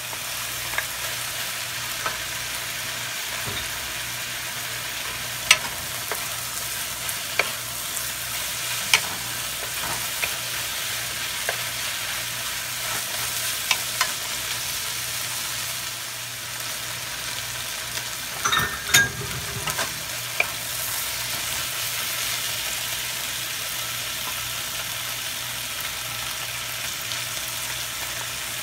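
Chicken and sliced mushrooms sizzling in a nonstick wok, stirred with a wooden spatula that knocks sharply against the pan now and then. A louder clatter comes about two thirds of the way through.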